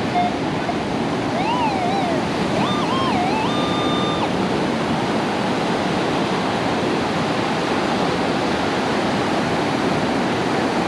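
Steady wash of breaking ocean surf with some wind. Between about one and a half and four seconds in, a metal detector's electronic target tone warbles up and down, then holds one pitch and cuts off.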